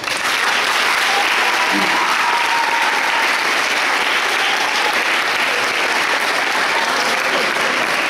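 Student audience applauding: steady, dense clapping that starts as the line ends and keeps going without letting up.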